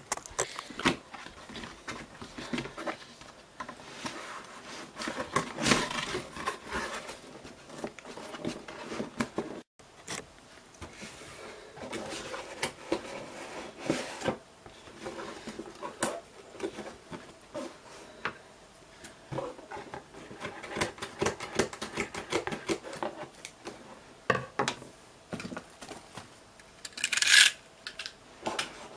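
A boxed PC power supply being unpacked by hand: cardboard and plastic packaging rustling, with irregular clicks and light knocks as parts are lifted out and set down. There is a brief break in the sound just under ten seconds in, and a louder rustle near the end.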